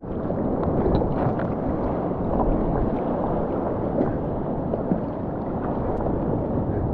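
Sea water sloshing and lapping against an action camera held at the surface, a steady muffled wash with a few small splashes.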